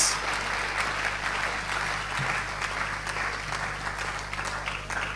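Large congregation applauding in a big hall, the clapping thinning out and dying down near the end.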